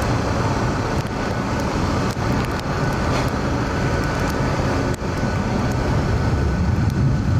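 Steady, low jet-engine noise from military aircraft climbing away just after takeoff.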